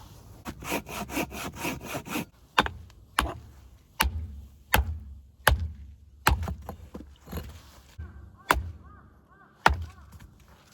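Japanese pull saw cutting through a branch for firewood: a quick run of even strokes, then slower, sharper strokes about a second apart.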